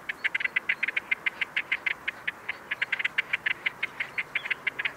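Great crested grebes calling in courtship display: a fast run of dry ticking notes, about ten a second, broken by short pauses.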